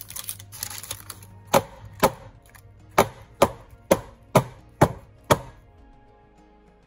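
Loaf tin full of cake batter banged down on the worktop eight times in quick succession, about twice a second, to knock air bubbles out of the batter.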